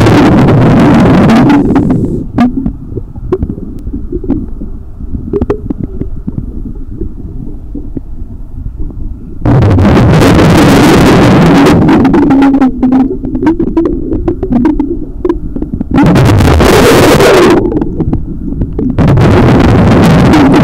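A scuba diver's exhaled bubbles rushing from the regulator, heard underwater: four loud bursts a few seconds long, the second and third about seven seconds apart, with a low rumble and small clicks between breaths.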